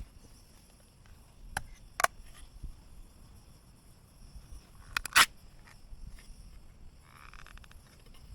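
Camp cookware and utensils being handled: a few sharp clinks and knocks, the loudest about five seconds in, then a short rattle near the end.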